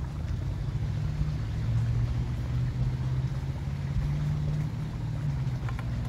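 Steady low motor hum with a deep rumble under it, like an engine running at a constant speed. A few faint clicks come near the end.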